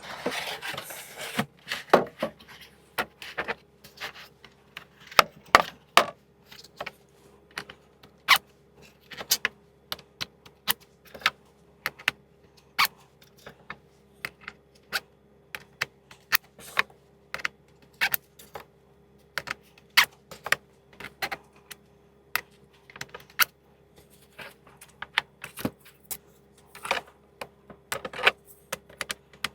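Metal sockets clinking and clicking as they are handled and twisted onto plastic twist-lock socket rail holders: an irregular run of sharp clicks and taps, with a short rattling scrape at the start.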